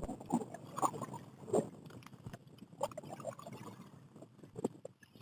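Light, irregular knocks and clicks aboard a fishing kayak, a few close together, none in a steady rhythm.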